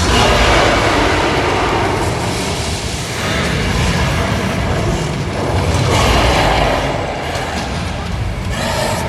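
Studio tour tram running: a steady low rumble under a broad noisy wash that swells and eases every few seconds.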